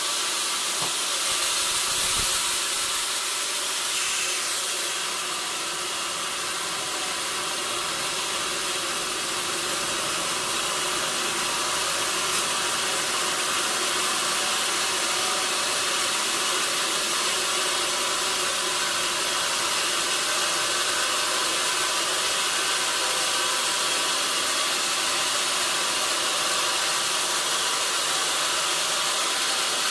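Sawmill machinery running steadily: a constant hissing drone with a faint steady hum underneath.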